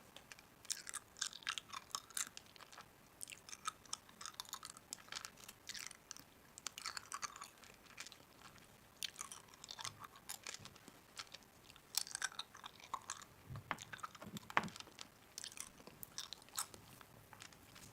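A person chewing and biting crunchy food, in irregular, closely spaced crisp crunches.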